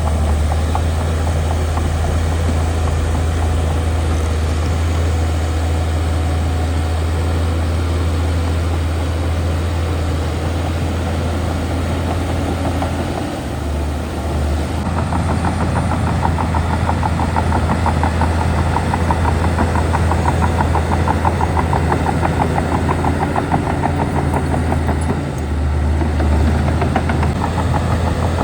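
Heavy diesel engine of earthmoving machinery running steadily with a deep, low drone. The level eases briefly about halfway through and again near the end.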